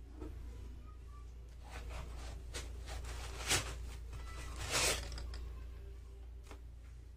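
Hands handling a plastic Speed Stacks tournament display in its foam packing: plastic rubbing and scraping against foam, with two short, louder scrapes about three and a half and five seconds in as the display is turned over and lifted out.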